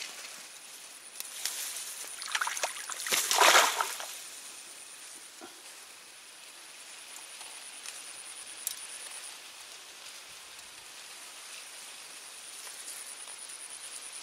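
Water sloshing and splashing in a short, noisy burst about two to four seconds in, then a faint steady outdoor background with a thin high-pitched whine.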